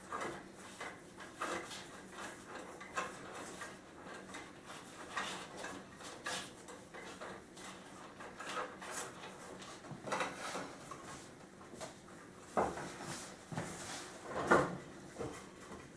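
Steel cable being threaded and pulled through holes in wooden chair parts: scattered small scrapes, clicks and rattles of cable and wood being handled, with a sharper knock near the end.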